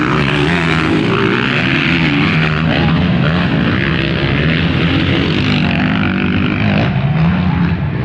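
Motocross bike engines running and revving, their pitch rising and falling.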